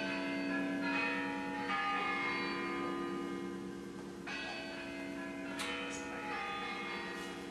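Bells chiming for the New Year at midnight, with several strikes a second or more apart, each left ringing over the last. The chiming stops at the very end.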